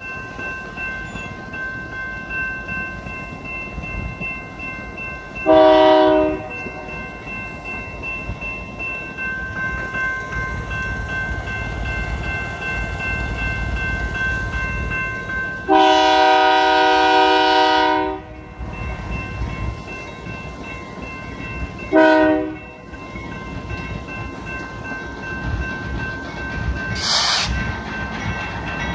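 BNSF diesel locomotive's multi-chime air horn sounding for the crossing: a short blast about five seconds in, a long blast of over two seconds around the middle, and another short blast a few seconds later, over the low rumble of the train. Steady high ringing tones of the grade-crossing warning bell run underneath.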